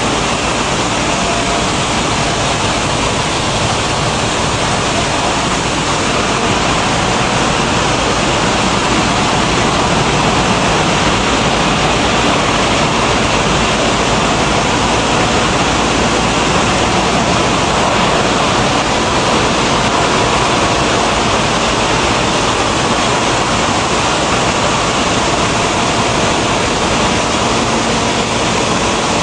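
Maize milling plant machinery running: a loud, steady, unbroken noise with faint steady tones running through it.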